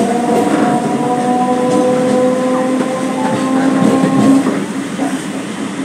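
Electric multiple unit (EMU) local train accelerating, its traction motors giving a whine of several steady tones over the noise of the running train. The whine fades out about four and a half seconds in.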